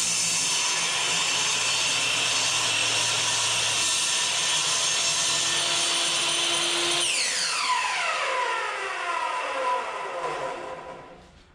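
Electric saw running through a cut in pallet wood, then switched off about seven seconds in, the blade spinning down with a falling whine that fades over the next few seconds.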